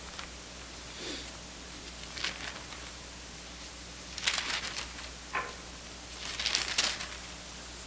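Thin Bible pages being leafed through at a pulpit: several short paper rustles, the loudest about four seconds in and again near six and a half seconds, over a low steady room hum.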